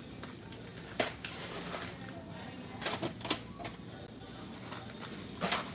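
Steady hum of a large store with a few sharp knocks and clatters: one about a second in, a quick cluster around three seconds in, and another near the end.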